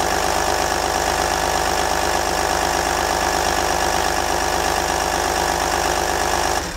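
Audi A6 C5's 2.5 TDI V6 (AFB) turbodiesel idling steadily, with its belts and pulleys running exposed in the open engine bay; the sound cuts off suddenly near the end.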